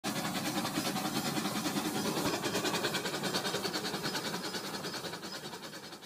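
Rail King battery-powered toy steam train running along its plastic track: a rapid, regular clattering pulse about five times a second, growing fainter near the end as the train passes by.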